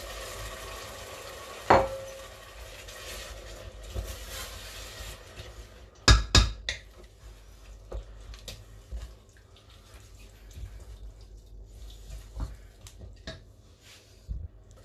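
Washed quinoa tipped from a bowl into a stainless steel pot of sofrito, then stirred with a wooden spoon. A sharp knock with a short ring comes about two seconds in, two loud knocks about six seconds in, and then a stretch of light scraping and tapping of the spoon in the pot.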